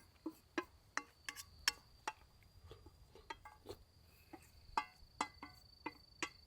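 Soft background music of plucked string notes, a few a second, each ringing briefly and fading, over a thin steady high tone.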